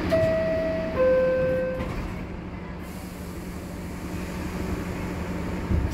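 NYC subway car's two-note falling chime, the door-closing signal, over the car's steady low hum. A low thump comes near the end.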